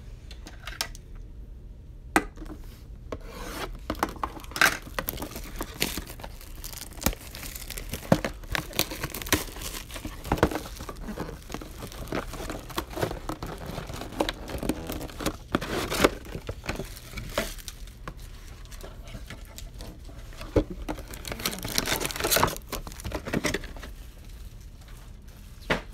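Trading-card box and wrapping being handled and opened: intermittent rustling, rubbing and scraping of cardboard and plastic, with scattered light taps and clicks.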